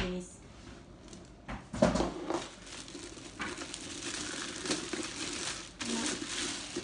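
Plastic packaging rustling and crinkling as food-processor parts are handled and unwrapped, with a thump about two seconds in.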